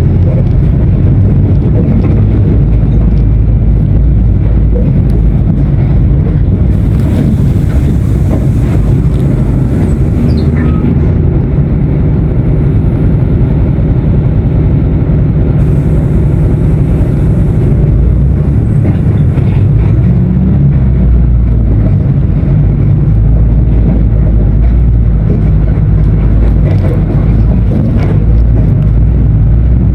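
Diesel engine of a Mercedes-Benz 1519 BlueTec 5 bus, running loud and continuous, its low note shifting a few times as engine speed changes.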